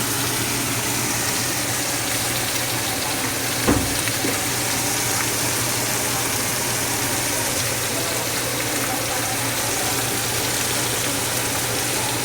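Steak frying in butter in a pan, a steady sizzle throughout, over a steady low hum. A single sharp knock about four seconds in.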